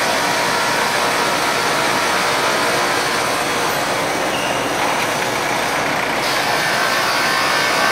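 Steady running noise of a board sanding line: a powered roller conveyor and sanding machine with its dust extraction, an even mechanical rush with no breaks.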